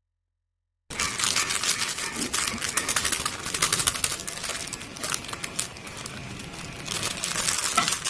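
Silence for about the first second, then plastic packaging crinkling and tearing as it is unwrapped, a dense run of crackles and rustles.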